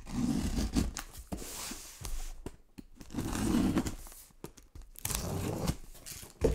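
Handheld box cutter slitting the packing tape on a cardboard shipping box, with tape tearing and cardboard rustling in several short bursts.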